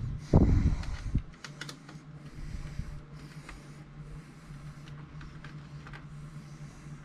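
Hands working small screws out of a laptop's screen assembly with a screwdriver: a handling thump about half a second in and a few light clicks, then soft hissing scrapes repeating about once a second over a low steady hum.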